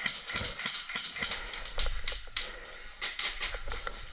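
Airsoft guns firing: a run of sharp, irregularly spaced clicks and pops.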